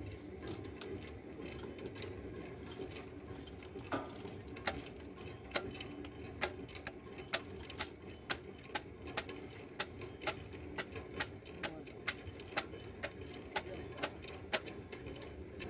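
Light metal-on-metal clicks, irregular at about two a second from a few seconds in, from steel bearing parts being fitted into the exciter housing of a vibratory pile hammer. A steady background hum runs underneath.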